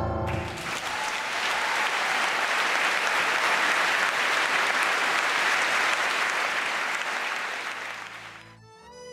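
Audience applauding steadily after the last chord of a live tango quartet, the clapping fading away about eight seconds in. Soft music with a bowed-string melody starts near the end.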